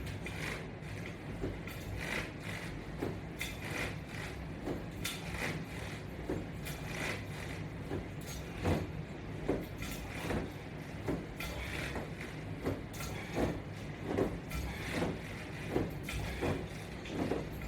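Crunches done against resistance straps: soft rustling and creaking of the straps and body movement, repeating about once every half to three-quarters of a second over a low steady hum.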